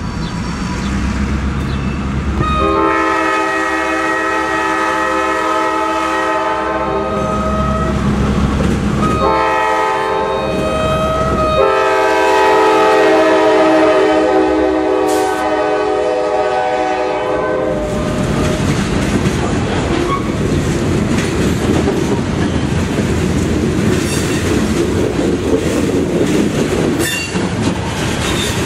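A Norfolk Southern diesel freight locomotive approaches and blows its multi-tone horn in several long blasts over about fifteen seconds, with its engine rumbling underneath. It then passes close by, followed by covered hopper cars rushing and clattering over the rails.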